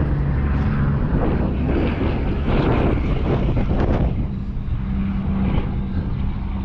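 A steady, low motor drone with a rushing noise over it.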